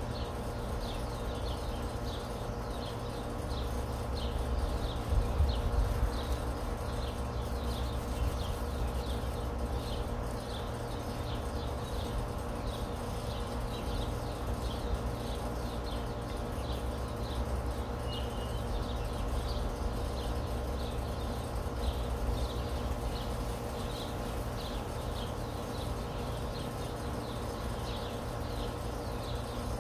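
Outdoor ambience: a high chirp repeating about once or twice a second over a steady low rumble, which swells briefly about five seconds in.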